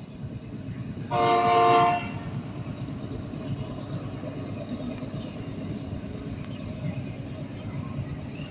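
Diesel locomotive air horn sounding one short blast of about a second, a chord of several tones, over the steady low rumble of the moving train.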